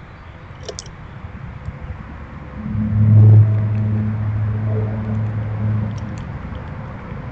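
A steady, low engine hum that comes in about two and a half seconds in and fades after about six seconds, over faint background noise and a few light ticks.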